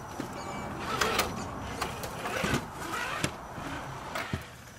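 Small electric motor and gear drive of an RC4WD Defender 90 scale rock crawler running as it climbs over rocks, with several sharp clicks and knocks of the tyres and chassis against stone.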